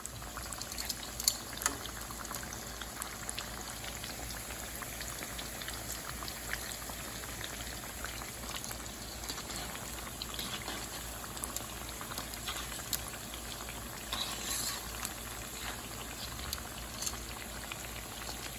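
Tofu cubes deep-frying in hot oil: a steady bubbling sizzle with many small crackles and pops.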